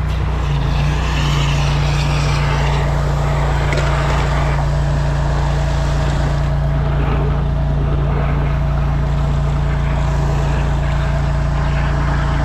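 Petrol engine of a high-pressure drain jetter running steadily under load, its note stepping up slightly about half a second in, with a hiss of water as the jetting hose is worked into a stormwater pipe.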